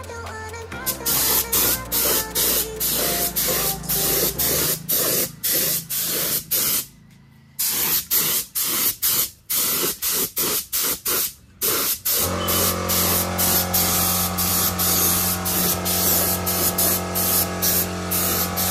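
Paint being sprayed in short bursts, about two a second, with a brief pause about seven seconds in. From about twelve seconds in the spray runs as one continuous hiss.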